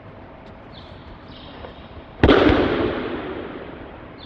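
A single loud slap of a body landing on the mat in a breakfall after an aikido throw, about two seconds in, followed by a long echo that dies away over a second or so.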